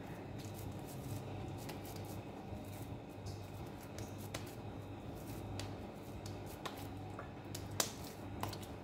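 Wet hands patting and pressing sticky minced chicken into a thick patty: soft squelching and scattered light clicks, with one sharper click near the end, over a steady low hum.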